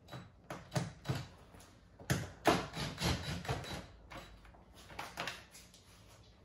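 Cordless drill with a Phillips bit backing out the small screws along the bottom edge of a Dodge Ram's plastic interior door panel: an irregular run of clicks and knocks, thickest between about two and four seconds in.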